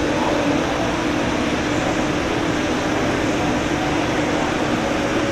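Steady machinery drone around the airport, an even rushing noise with a low hum underneath, unchanging throughout.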